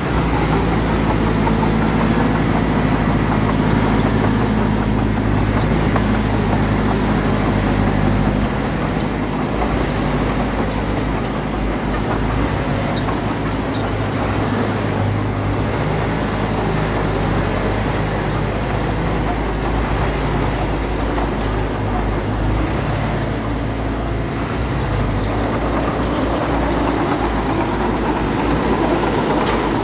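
Diesel engine of heavy earthmoving equipment running steadily under load, its note shifting up and down now and then as the machine works, with a slight drop in loudness about eight seconds in.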